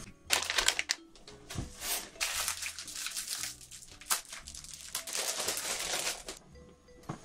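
Cooking sounds from a pot of instant ramen on a hob: water poured into the pot and broth bubbling, heard as a run of short crinkly, rustling bursts that die down near the end.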